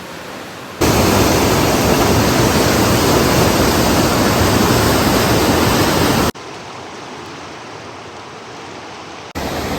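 Rushing whitewater of a class 4 river rapid, a steady loud wash of water noise. It jumps sharply louder about a second in and drops back suddenly about six seconds in.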